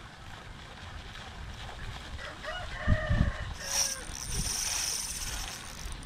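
A rooster crows once, about midway through. It is followed by a high, rapidly pulsing buzz lasting about two seconds, with a few dull low thumps around the crow.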